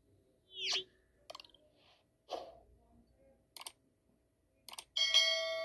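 Subscribe-button animation sound effects: a short rising sweep, a few mouse clicks, some in quick pairs, and about five seconds in a bell-like notification ding that rings on.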